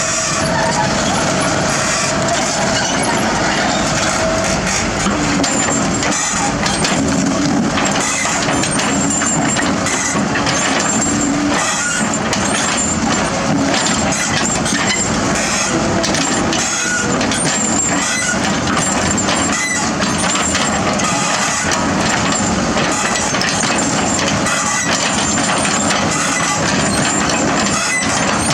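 Heavy diesel construction machinery running steadily at a road works, with frequent knocks and clanks.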